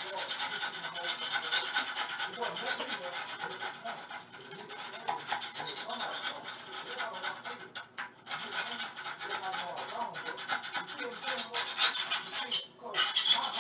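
Rapid, continuous scraping and rubbing against toilet parts during a repair, breaking off briefly about eight seconds in and again near the end.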